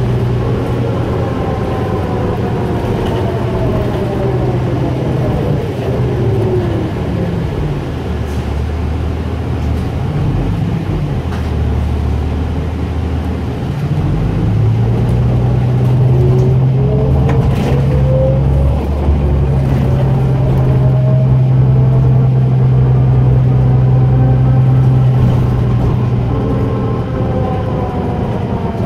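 Interior of a 2004 New Flyer DE40LF diesel-electric hybrid bus with a Cummins ISL diesel and Allison E Drive. The drive's electric whine falls in pitch as the bus slows, the diesel settles to a low hum for a few seconds, and then the whine climbs again from about halfway through as the bus pulls away, over the engine's steady drone.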